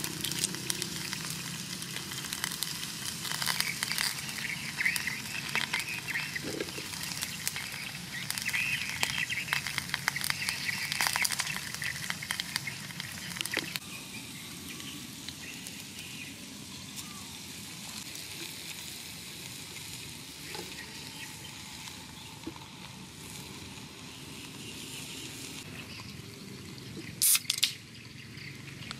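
Beef and vegetables sizzling and crackling in cut-open beer cans set on glowing charcoal, with many small pops; it grows quieter about halfway through. Near the end a can of ABC beer is opened, a short sharp hiss.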